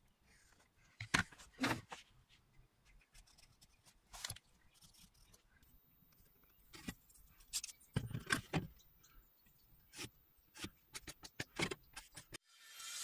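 Scattered light clicks and knocks of hand tools being handled on a workbench: a steel ruler, a pencil and a small wooden block set down and shifted while marking out. The knocks come irregularly, the loudest about a second in and again around eight seconds in.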